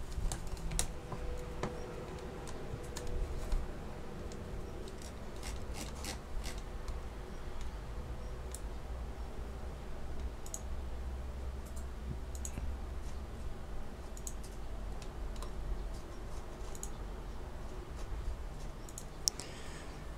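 Scattered clicks of a computer mouse and keyboard, one every second or two, over a steady low hum.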